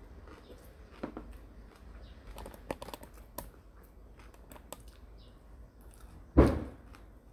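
Mouth sounds of chewing a mouthful of spicy instant noodles: soft, scattered wet clicks. About six seconds in comes one short, louder rush of noise.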